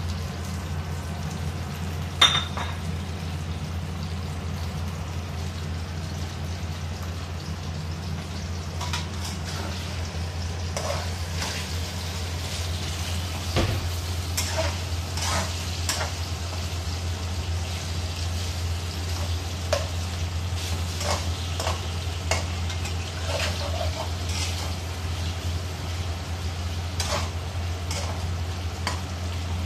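Meat stir-frying in a wok: a metal spatula scraping and clinking against the pan over sizzling, with a sharp clank about two seconds in. A steady low hum sits underneath.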